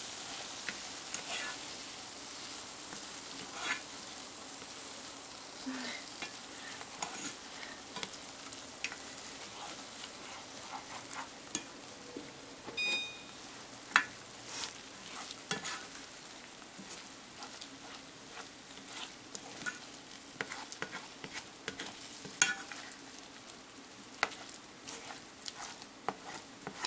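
A pot of quick-oat porridge with berries simmering on the stove with a soft, steady sizzle, while a spoon stirs it, scraping and tapping against the pot in irregular clicks.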